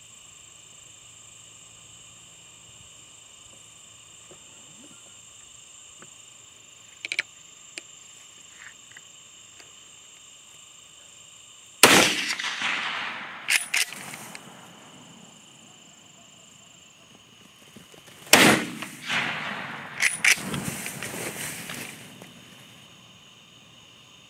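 A .30-06 rifle firing: a sharp crack about halfway through that rolls off in a long echo, followed by two more loud cracks about six and eight seconds later, each also echoing away.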